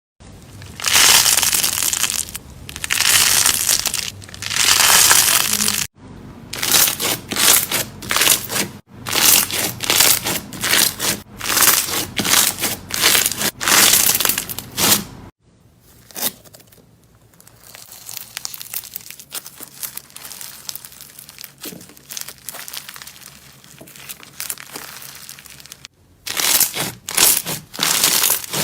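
Slime being squeezed and pressed by hand, making dense rapid clicks and pops. It comes in several short segments that cut abruptly from one to the next, with a quieter stretch in the second half.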